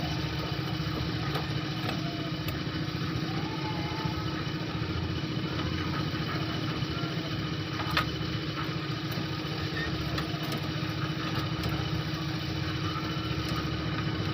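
A small engine running steadily at idle, with a few light clicks and one sharper click about halfway through.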